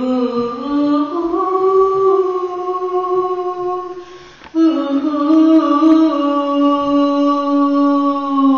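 A woman singing two long held notes, unaccompanied, with a short breath between them about four and a half seconds in. The first note slides up into place; the second sags slightly at the end.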